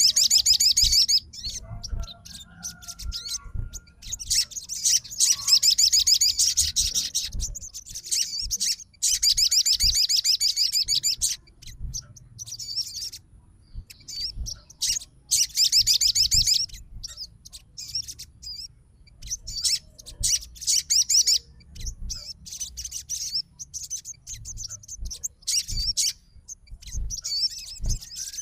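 A sogon bird singing hard in fast, high-pitched trilling bouts a few seconds long, with short chirps between them. This is the excited, challenging song that fanciers call 'gacor' and use to provoke rival birds.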